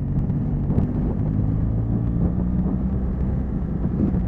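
Motorcycle engine running under way, its pitch shifting a little, with wind rumbling on the microphone.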